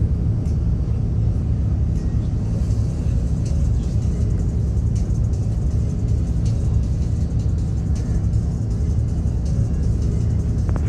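Steady low rumble of a boat's engine and hull underway on open water, recorded on board.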